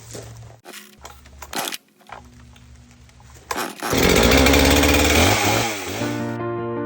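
After a few short sharp sounds, a Husqvarna chainsaw fitted with a three-foot bar runs loud at full throttle for about two seconds, its pitch dropping as it comes off; music starts near the end.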